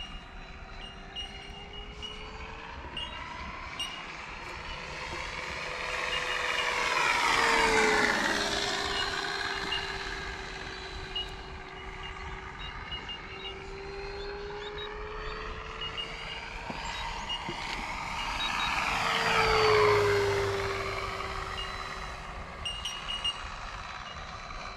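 FMS F4U Corsair 1700 mm electric RC warbird flying two passes. Its motor and propeller sound swells and drops in pitch as it goes by, about seven and about nineteen seconds in, and fades between the passes.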